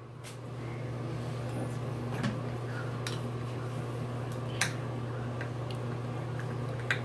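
A few light clicks and taps of small plastic makeup containers and a makeup brush being handled, over a steady low hum.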